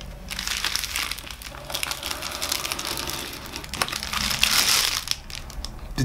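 A small Gerber GDC Zip Blade slicing through a plastic bubble mailer, the plastic rustling and clicking as it is slit and pulled open, loudest a little past four seconds in.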